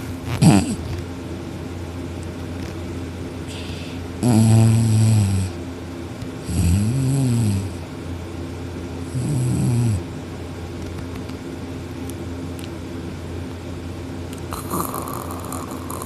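A sleeping man snoring: three long, low, rattling snores a couple of seconds apart, the middle one rising and then falling in pitch, after a short sharp falling sound about half a second in, over a steady low hum.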